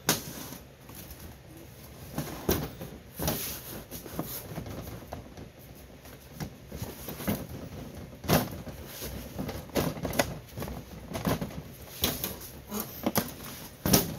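The sheet-metal tear strip of a soldered ammunition tin being peeled around the lid by gloved hands: irregular crinkling, snaps and clicks of bending tin, with knocks as the tin is handled.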